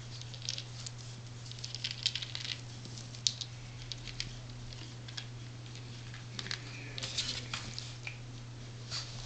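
Tiny Yorkshire terrier puppy's paws pattering and scratching on a puppy training pad: irregular soft crinkles and clicks, over a steady low hum.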